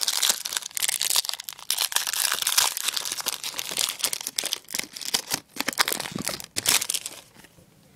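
Foil trading-card pack wrapper being crinkled and torn open by hand, a dense crackling that stops about a second before the end.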